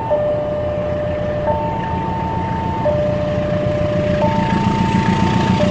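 Railway level-crossing warning signal sounding an alternating two-tone chime, a higher and a lower note each held about a second and a half. Under it is the rumble of an approaching diesel train, growing louder.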